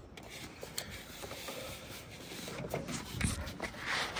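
Hands handling a refrigerant vacuum hose and threading its brass fitting onto a Schrader core removal tool on an A/C condenser's service valve: faint rubbing and small metal clicks, with one louder knock a little after three seconds.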